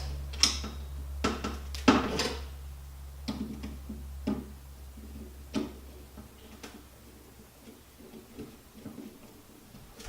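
Scattered light clicks and knocks of metal drill parts and hand tools being handled on a workbench during reassembly, some with a short ring. Under them is a low steady hum that fades away near the end.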